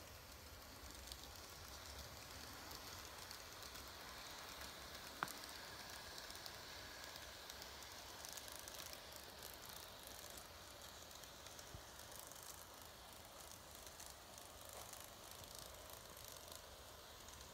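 Faint whirring and light ticking of an N-gauge model C11 steam locomotive and its coaches running along sectional track, with one sharp click about five seconds in.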